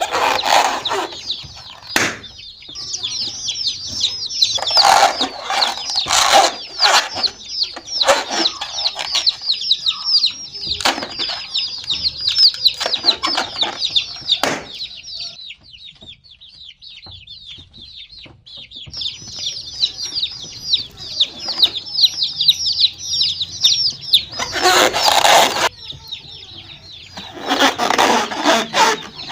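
A group of baby chicks peeping nonstop, many high, falling chirps overlapping, with a quieter lull around the middle. Several short bursts of scuffling noise cut in among the peeps.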